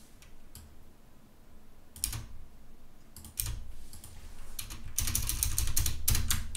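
Typing on a computer keyboard: a few separate keystrokes, then a quick, louder run of typing in the last two seconds or so.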